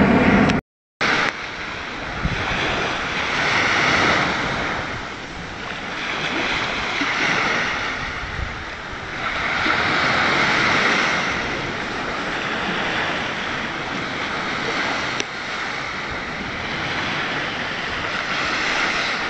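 Surf breaking and washing up a sand beach, swelling and easing every few seconds. A low-flying aircraft's engine drone is loud at the very start and cuts off in the first second.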